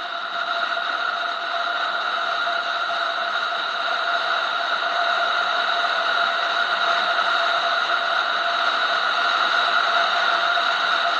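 Motorcycle riding at steady cruising speed: wind rush over the camera mixed with a constant engine and drivetrain hum, growing gradually louder.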